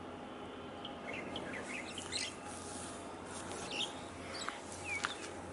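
Small birds chirping: a run of short, quick calls over a steady low hum of background noise.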